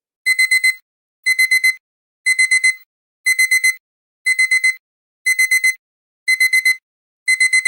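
Digital alarm-clock beeping as the countdown timer runs out: quick bursts of four high electronic beeps, repeating once a second.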